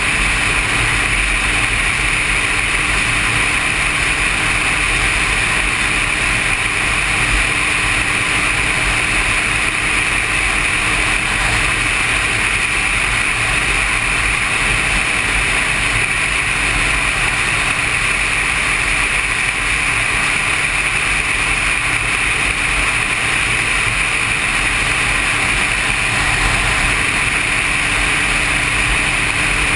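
Motorcycle cruising at a steady speed: a constant rush of wind and road noise mixed with a low engine drone, without gear changes or pauses.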